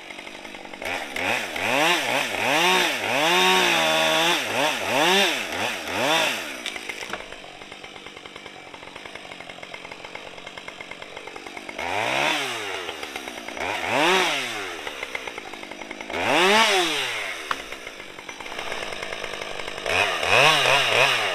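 Husqvarna 550 XP two-stroke chainsaw revving up and down in a string of short bursts while cutting up a storm-damaged tree. It drops to a lower idle for several seconds in the middle, then gives a few more single revs.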